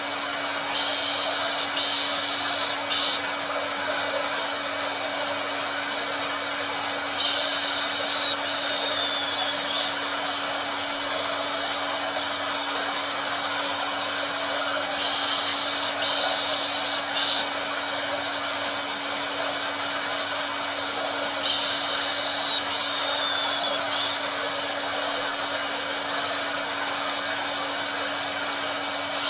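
Hair dryer blowing steadily, a constant rushing noise over a low hum, used as soothing white noise for a baby. A higher, brighter hiss rises and falls away again about every seven seconds.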